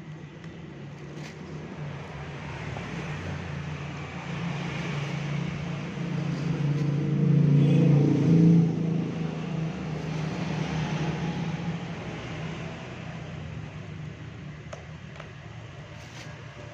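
A motor vehicle engine passing by: a low hum that grows louder to a peak about halfway through, then fades away.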